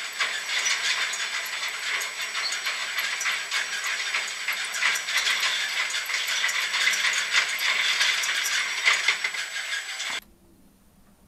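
Shooting-range target carrier running along its overhead track, a steady rattling hiss with many small clicks as the trolley brings the paper target in. It stops abruptly about ten seconds in, leaving faint room tone.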